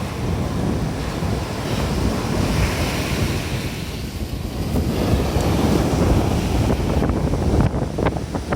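Sea waves breaking and washing up the beach, under strong wind buffeting the microphone with a low rumble. A wave's hissing wash swells about two to three seconds in, and short crackles of surf come near the end.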